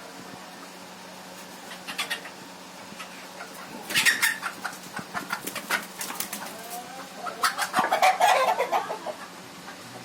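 Desi roosters flapping their wings in several short bursts, with some calls mixed in near the end.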